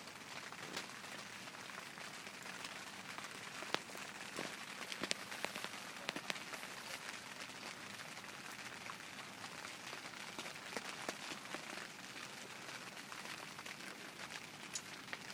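Light rain pattering steadily, with many scattered sharper drop ticks, the loudest about four to six seconds in.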